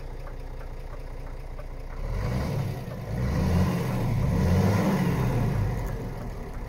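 Scania S500's 13-litre inline-six diesel, heard from inside the cab, revved with the truck standing still: a short rise in revs about two seconds in, then a longer rev held for a few seconds that falls back toward idle near the end.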